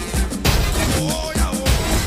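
Soundtrack music with a heavy bass beat and a sharp hit about half a second in.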